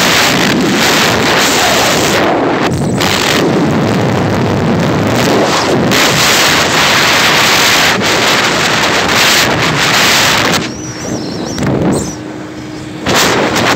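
Wind rushing hard over the microphone of a vehicle moving fast along a road, with road and engine noise underneath. The rush eases briefly twice near the end.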